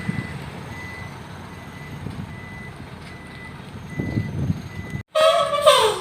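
Heavy dump truck's diesel engine running, with faint repeating reversing beeps. About five seconds in, after a sudden cut, a loud horn-like blast sounds and falls in pitch near the end.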